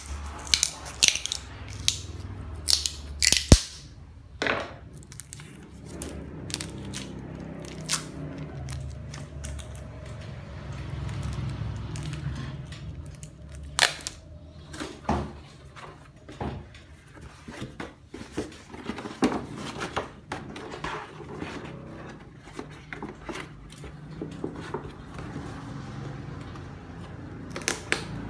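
Packing tape being handled, pulled from its roll and pressed onto the rim of a flexible black plastic plant pot, with plastic crackling: irregular sharp clicks, crackles and short tearing sounds.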